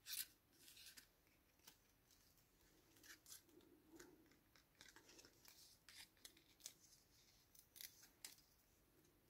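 Faint rustling of twine and ribbon being handled and tied, with light scissor snips near the end as the ribbon ends are trimmed.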